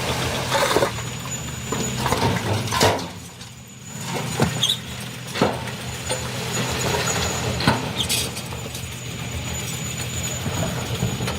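Heavy earthmoving machine engine running steadily, with several sharp metallic clanks and knocks from the working machinery and a brief drop in loudness about three seconds in.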